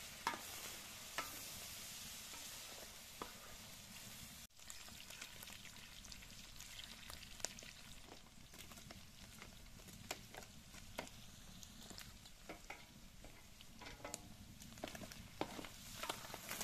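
Diced lamb liver, heart and kidney sizzling in sheep-tail fat in a large aluminium pan, with a wooden spatula stirring and scraping through the meat. A steady faint hiss dotted with small crackles and clicks, broken off briefly about four seconds in.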